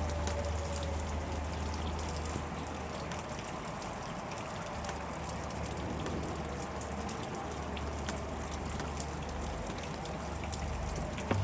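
Steady heavy rain falling, with many small crackling patters over a low rumble. A faint tone that slowly wavers in pitch sits underneath at the start and again near the end.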